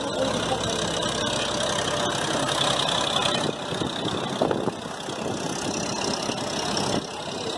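New Holland 3030 tractor's three-cylinder diesel engine running under load as it tows a tanker through deep floodwater, with the water splashing and rushing around the wheels.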